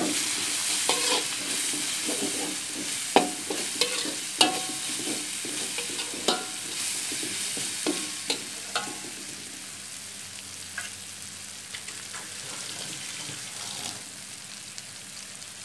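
Onion and tomato masala sizzling in hot oil in a metal wok while a slotted metal spatula scrapes and taps against the pan. The stirring strokes come often in the first half and thin out later, and the sizzle grows slightly quieter.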